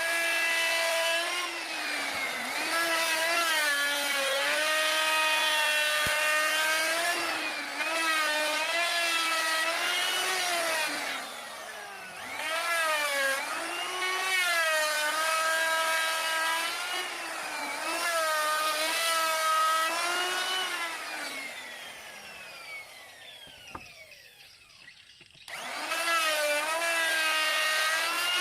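Table saw running with a high whine that sags in pitch each time wood is fed into the blade and recovers between cuts. Near the end it winds down with a falling pitch, goes quiet for a moment, then starts up again abruptly.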